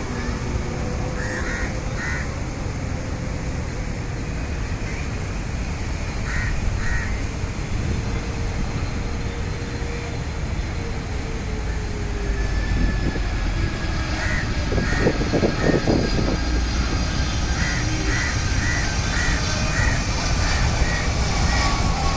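Crows cawing in short calls, a few pairs early on and then a quick run of them in the last third. Under them are a steady low rumble and a slowly falling engine tone from the landing aircraft.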